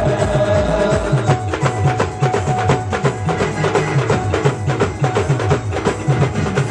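Live band music: a fast, dense drum beat over a repeating bass pattern, with a few held melody notes.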